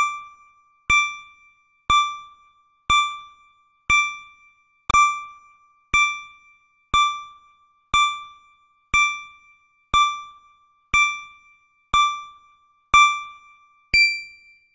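Countdown timer sound effect: a short electronic ding once every second, fifteen in all, each fading quickly. The last ding, at zero, has a different, higher tone and rings a little longer.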